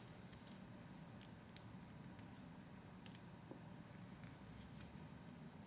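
Faint, scattered clicks and taps of plastic Lego Technic pieces being handled and fitted together, the sharpest about three seconds in.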